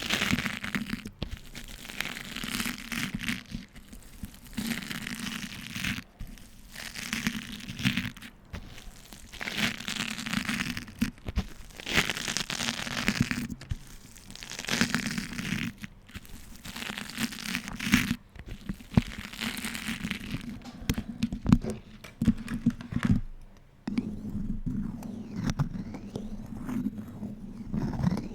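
Beeswax food wrap being crumpled and worked in the hands, crinkling and crackling with sharp cracks, in repeated bursts every second or two, growing sparser near the end.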